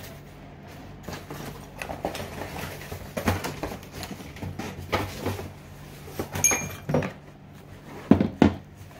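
Handling noises: tissue wrapping paper rustling, metal exhaust silencers and a cardboard box knocked and shifted on a counter, with two sharp thumps near the end as the box is set down.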